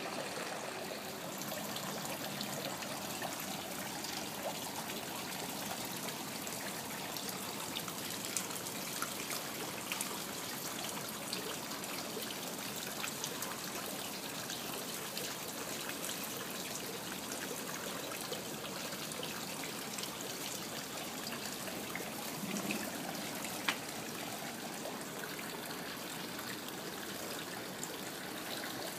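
Steady trickle of running water into a pond, an even splashing hiss, with a couple of brief faint clicks.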